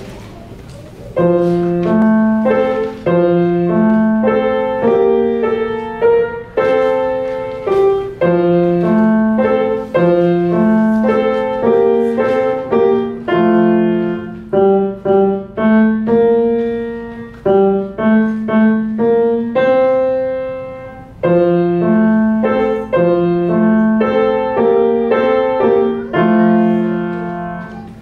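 Solo grand piano playing a short, simple tune over a repeating low left-hand pattern, starting about a second in, with the last notes dying away near the end.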